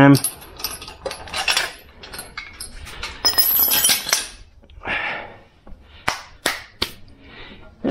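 Metal parts and hardware being handled and set down: scattered clinks and knocks, with a scraping patch about three seconds in and three sharp taps near the end.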